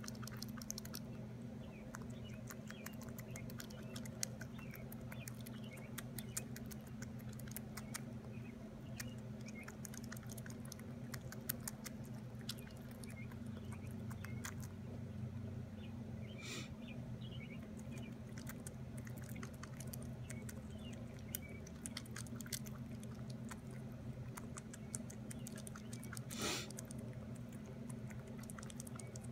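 Young fox squirrel nibbling and chewing a chunk of melon held in its paws: a fast, irregular run of small wet clicks, over a steady low hum.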